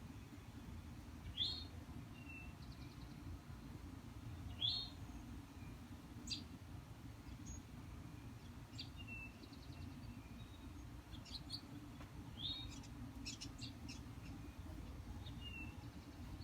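Small birds chirping: about ten short, high chirps scattered irregularly, the two loudest near the start, over a faint steady low hum.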